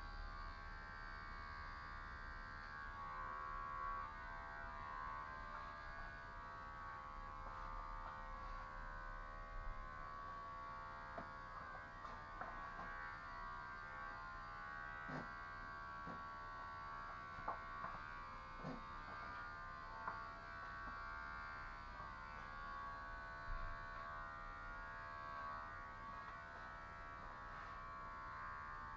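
Electric hair clippers running with a steady buzz, with a few short clicks in the middle.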